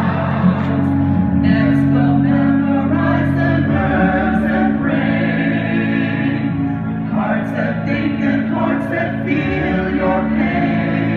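A group of voices singing together in chorus over instrumental accompaniment, with held low notes underneath.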